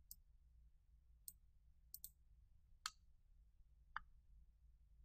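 Faint computer mouse clicks, about six in all, including two in quick succession about two seconds in, over a low hum.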